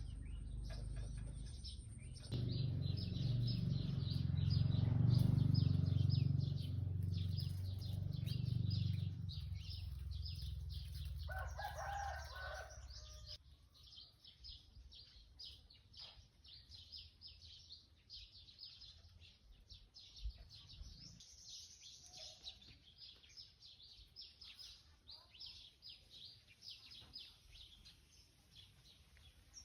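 Small birds chirping in quick, continually repeated high calls, over a low rumble that fades out about halfway through.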